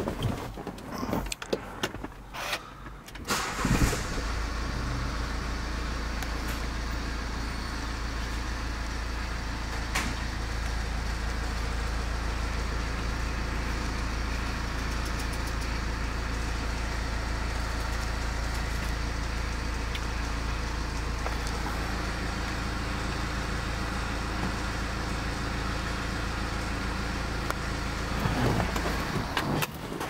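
A BMW 218 Active Tourer's engine starts about four seconds in and settles into a steady idle. It cuts off near the end, with a few handling knocks before the start and after the stop.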